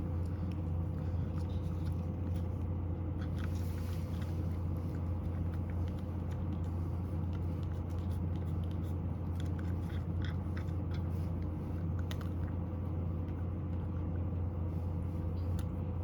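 A cat crunching dry kibble, a scatter of small sharp crunches through the middle, over a steady low hum.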